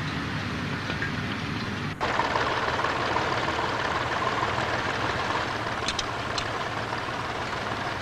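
A vintage tractor's engine running steadily as it pulls a plough. It comes in abruptly about two seconds in, after a quieter mechanical clatter from a horse-drawn plough.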